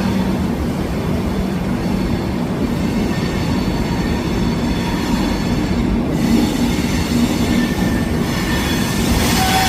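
Garib Rath Express passenger train running on the rails: a steady, loud rumble of wheels and coaches, with a thin wheel squeal coming in near the end.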